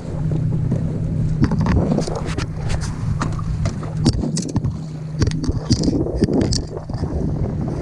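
Wind buffeting the microphone on a kayak, over a steady low hum, with frequent short knocks and clicks against the boat and gear.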